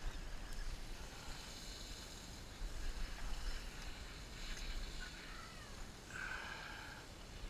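Steady wind and water noise with a low rumble on the deck of a sportfishing boat. A short gliding call comes about five seconds in, and a held higher-pitched call follows a second later.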